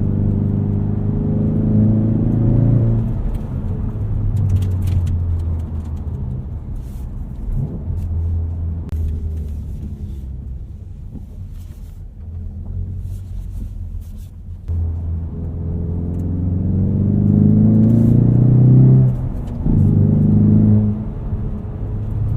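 Motor vehicle engine running with a low steady drone. It revs up with rising pitch twice, near the start and again in the last few seconds, and drops off suddenly after the second rise.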